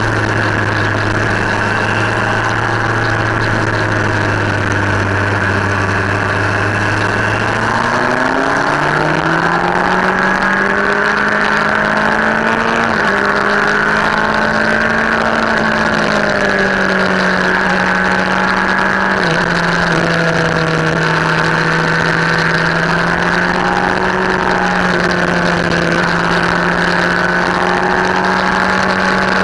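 Motorcycle engine running under way with wind rush on the microphone. The engine note holds low, then rises about eight seconds in as the bike accelerates, and stays higher with small rises and falls for the rest.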